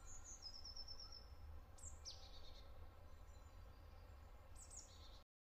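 Faint birdsong: short high chirps and a quick descending trill at the start, a downward-sliding call about two seconds in and another near the end, over a low steady rumble. It cuts off abruptly to silence about five seconds in.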